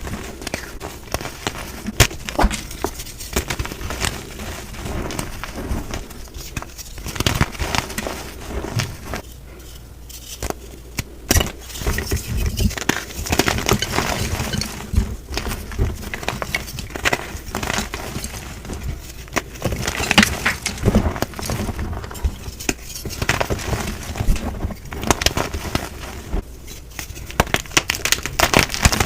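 Gym chalk being crushed, a dense run of crunchy crackles and snaps with a few louder cracks.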